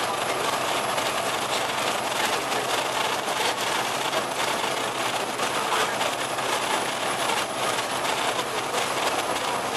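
Cummins ISL8.9 8.9-litre diesel engine of an Alexander Dennis Enviro500 double-decker bus running with the bus under way, heard inside the cabin as a steady drone mixed with road and running noise.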